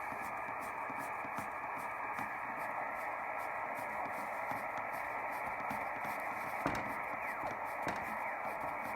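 Ten-Tec Paragon HF transceiver receiving on lower sideband: steady band-noise hiss through its speaker, held to the narrow sideband audio passband, with frequent faint static clicks.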